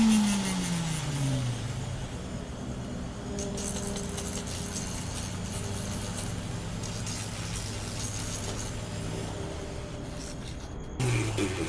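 Motor of a 380 W flex shaft grinder winding down from high speed: its hum falls steadily in pitch over the first second or so, then it runs on at a lower, steady speed. Near the end the sound breaks off abruptly, and a short falling hum starts again.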